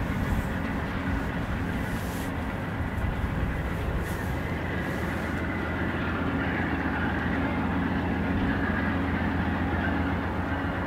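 VIA Rail GE P42DC diesel locomotive approaching slowly at the head of its passenger train: a steady low diesel engine drone that swells a little toward the end.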